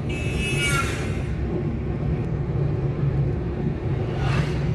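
Steady low engine and road hum inside a moving car's cabin. About a second in, a brief high-pitched tone falls in pitch, and there is a short hiss near the end.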